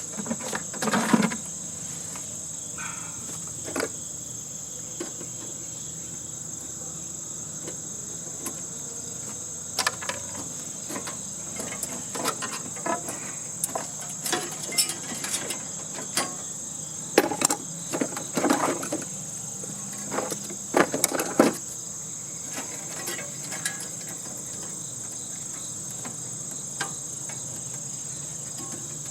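A steady, high-pitched insect chorus throughout, with scattered knocks and clatter of tools and metal parts as an air-conditioning unit is taken apart for scrap. The clatter comes in short clusters, busiest about a second in and again around two-thirds of the way through.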